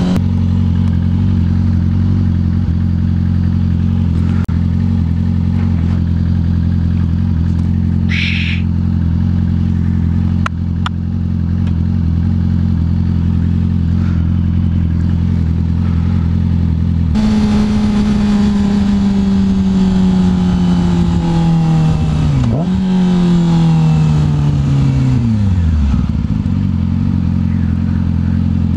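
A 2007 Yamaha R6's inline-four engine runs at a steady speed while riding, with a brief high-pitched squeak about eight seconds in. After about seventeen seconds the engine note falls as the bike slows, with a short rise partway through, typical of a downshift blip, before it drops toward idle near the end.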